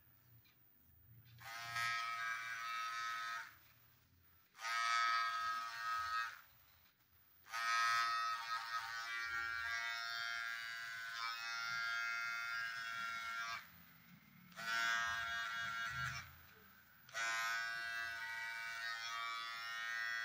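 Electric hair clipper buzzing while cutting hair at the side of the head for a fade. It runs in five stretches of about one to six seconds each, with short quiet gaps between them.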